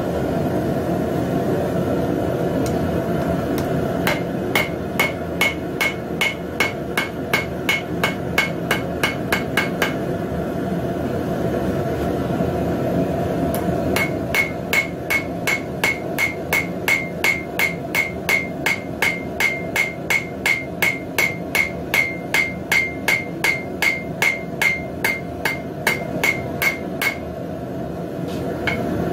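Small cross-peen hammer striking hot steel on an anvil, chiselling vein lines into a forged leaf: quick, even blows at about three a second, each with a short metallic ring. There are two runs of blows with a pause of a few seconds between them, over a steady low rushing noise.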